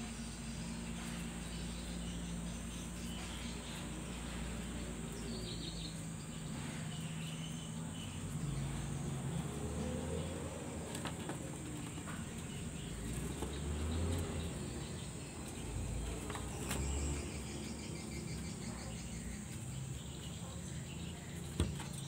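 Steady insect chirring in the background over a low hum, with a few short high chirps and one sharp click near the end.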